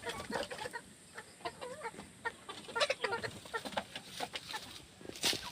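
Chickens clucking: a run of short, irregular calls.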